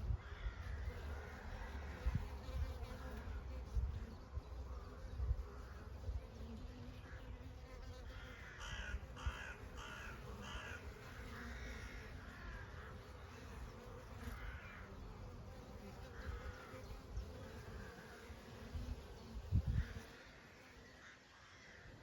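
Honey bees buzzing steadily. A bird calls about nine seconds in, a quick run of five or six harsh calls. Low rumbles sound near the start and once near the end.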